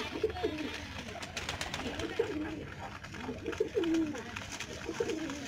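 Racing homer pigeons cooing: about four low, curving coo phrases, with a few sharp clicks near the middle.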